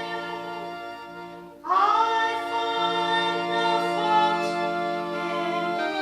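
Church music: an organ holding sustained chords, with singing coming in over it about a second and a half in.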